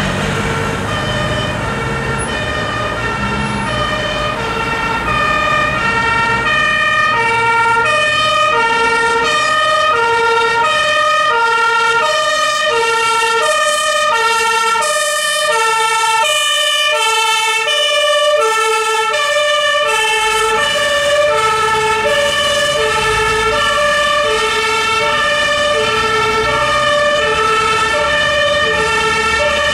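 Dutch fire engine's two-tone siren sounding without a break, switching evenly between two pitches, each held a little over half a second. The truck's engine is heard beneath it as it drives past, about halfway through.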